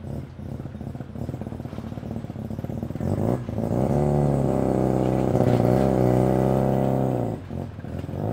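Mazda RX-3's bridge-ported 13B rotary engine with a choppy, lumpy burble at low speed. About three seconds in it revs up as the car pulls away, holds the higher note for about four seconds, then drops back to the lumpy burble near the end.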